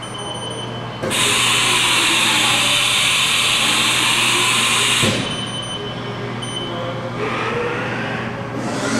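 Haas TM-1 CNC vertical mill running over a steady low machine hum. A loud, even hiss starts about a second in and cuts off about four seconds later. Near the end the spindle speeds up again, and a high whine sets in as it heads back to 4,000 RPM.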